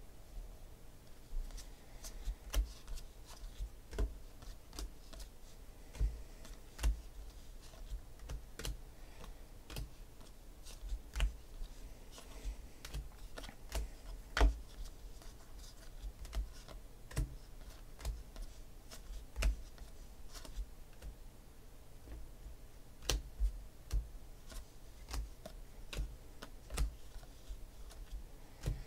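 2016 Panini Phoenix football trading cards being handled by hand: quiet, irregular clicks and taps as the cards are flicked through, squared up and set down on the table.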